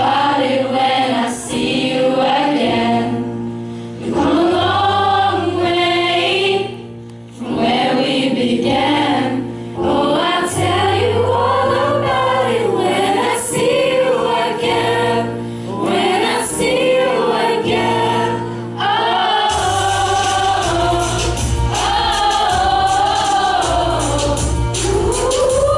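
A school choir singing a pop song with band accompaniment. About three-quarters of the way through, the drums and bass come in fuller and stronger.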